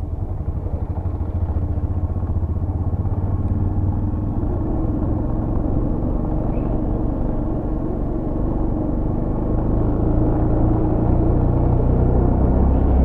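Motorcycle engine running steadily on the move, getting a little louder over the last few seconds.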